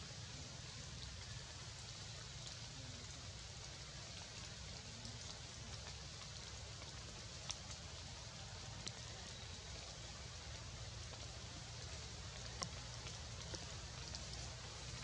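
Faint, steady outdoor hiss of forest ambience, with a few isolated sharp ticks in the second half.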